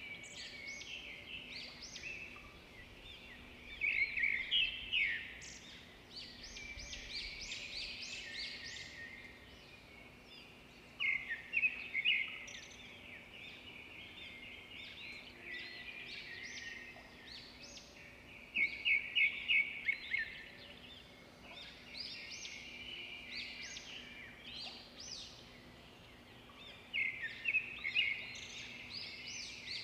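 Birds chirping in bursts of quick repeated high notes, a burst every five to eight seconds, over a faint steady hum.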